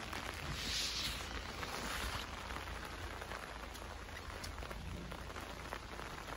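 Steady rain falling, an even hiss with a few scattered drop ticks, a little louder about a second in.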